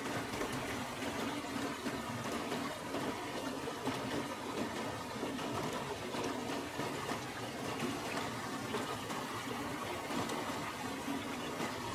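River water running steadily, an even trickling flow.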